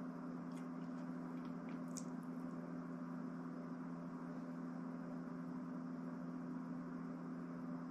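Steady low hum with a faint hiss, and a few faint ticks about two seconds in.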